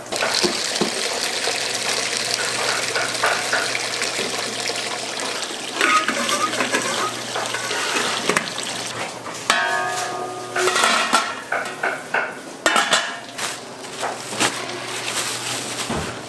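Restaurant kitchen work: a steady hiss of cooking for the first few seconds, then metal pots, dishes and utensils clanking, with a scraping squeal about ten seconds in.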